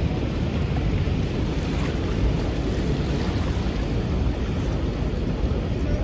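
Steady rushing of churning, foaming river water beside a boat, with a heavy low rumble.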